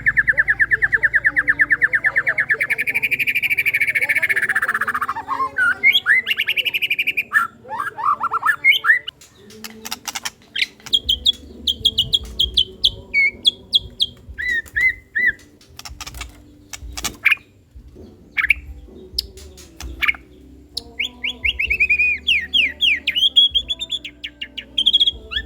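White-rumped shama (murai batu) singing. It opens with a long machine-gun-like rapid trill, the 'tembakan' phrase keepers value, lasting about five seconds. This is followed by varied whistles, sharp clicks and short trills, with another fast high trill near the end.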